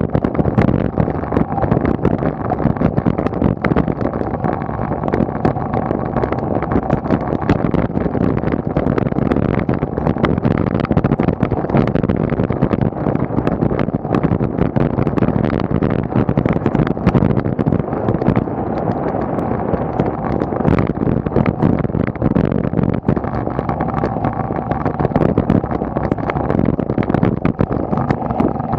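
Steady wind rush and tyre rumble on tarmac from a road bike climbing, heard through a bike-mounted camera's microphone, with many small knocks from road vibration.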